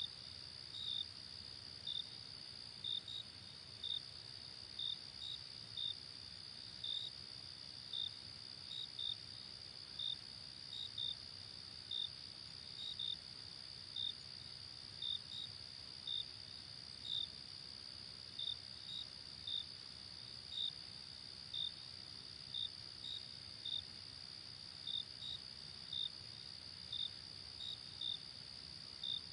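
Crickets chirping: a continuous high trill with louder separate chirps over it, coming about one or two a second.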